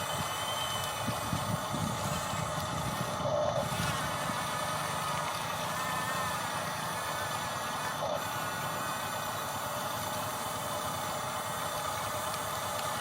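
Radio-controlled construction machine running with a steady mechanical hum.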